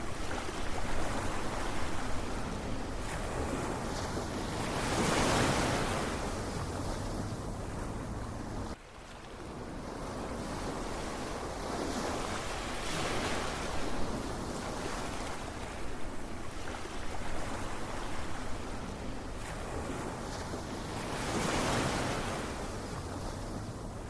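Ocean waves surging and washing ashore, the surf swelling and fading every few seconds, with two larger waves breaking about five and twenty-one seconds in. The sound drops off suddenly about nine seconds in, then builds again.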